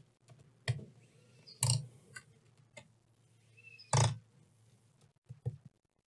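Mostly quiet handling of a laptop's aluminium bottom cover: a few soft clicks and taps, and two brief low grunt-like vocal noises from the man, about two seconds apart.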